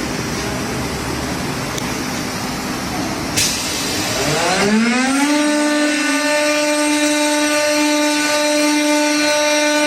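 A CNC door hinge machine running: a steady machine noise, a sharp click about three and a half seconds in, then a motor whine that rises in pitch over about a second as the motor spins up and then holds steady.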